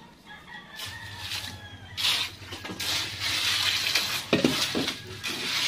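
Water poured from a plastic dipper, splashing into a pool of water in a heap of cement, sand and gravel mix, from about two seconds in.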